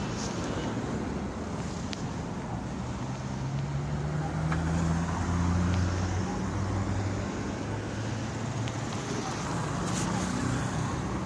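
City road traffic: cars, trucks and motorcycles running past, with a steady rush of tyre and engine noise. A vehicle's low engine drone swells in the middle and fades, and another engine hum comes up near the end.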